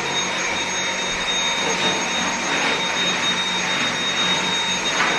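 Dyson V7 Motorhead cordless stick vacuum running steadily: a rush of air with a high-pitched motor whine.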